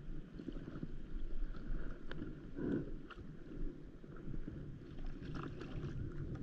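Small waves lapping and splashing against the hull of an inflatable paddleboard, with a few light clicks and knocks scattered through.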